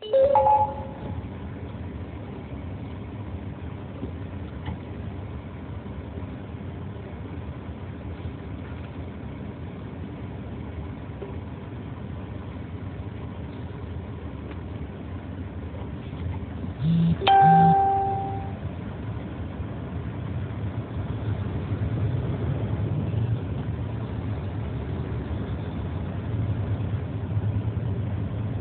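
Truck cab interior noise: a steady low engine hum that grows louder in the last third as the truck pulls away in slow traffic. Two short electronic chimes sound, one right at the start and a louder one about 17 seconds in.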